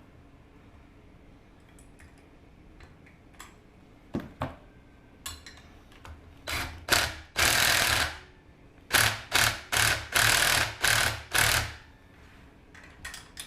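A handheld power tool run in short bursts while fastening a suspension spring mount: a few light clicks, then a longer run of about a second, then a quick string of about seven short pulses, two to three a second.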